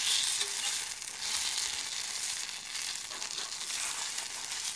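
Thin pancake batter sizzling steadily on a hot muurinpohja griddle pan as its first side cooks.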